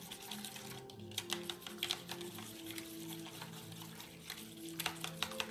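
A fork beating eggs in a coating tray: rapid, irregular clicks of the tines against the tray, over soft background music.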